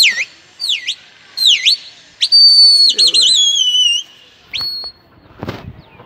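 Loud human whistling to call a flying flock of pigeons: three quick swooping whistles, then a long held whistle that warbles and slowly falls, and a short last whistle about four and a half seconds in.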